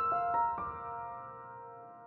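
Background piano music: a few notes struck in the first half-second, then left ringing and fading away.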